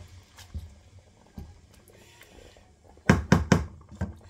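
A wooden spoon stirs rice in a steel pot with faint scrapes, then is knocked sharply against the pot several times in quick succession about three seconds in, shaking off the rice.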